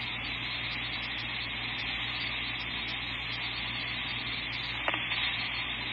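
Steady radio hiss with a low hum underneath on a police and fire dispatch feed between transmissions, with one faint click about five seconds in.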